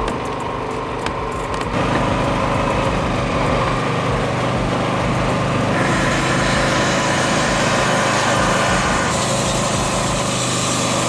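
A machine's engine running steadily, with a constant hum and a mechanical rushing noise that grows harsher about six seconds in and again about nine seconds in.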